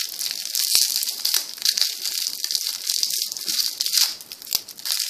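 Plastic lollipop wrapper crinkling and crackling unevenly as fingers pick and pull at it; the wrapper is really hard to open.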